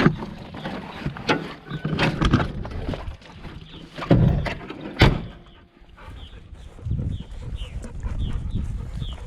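A few sharp knocks and thumps, then a dog panting quickly and steadily.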